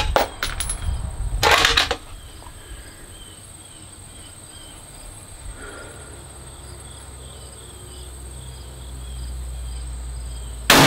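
6.5 Creedmoor bolt-action hunting rifle firing a single sharp shot near the end, with a loud clatter about a second and a half in. Between them, faint insect chirping runs over a low rumble.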